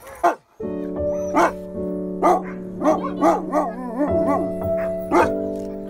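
Sled-dog huskies barking with short, sharp yips over background music with held chords, which comes in about half a second in.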